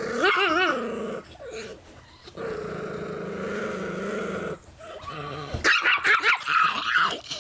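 A small chihuahua–miniature pinscher mix growling as it guards its peanuts: a wavering growl, then a long steady growl, breaking near the end into loud snarling and snapping barks as it lunges.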